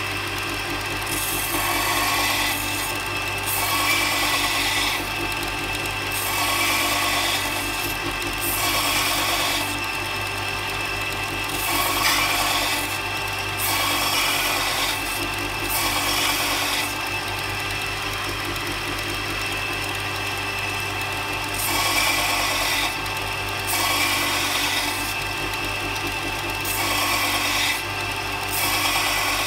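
Bench grinder running with a steady hum while a blunt 10 mm twist drill bit is held against the wheel to sharpen it, in repeated short grinding passes, each a rasping hiss, about every one and a half to two seconds. The passes stop for a few seconds around the middle, leaving just the motor.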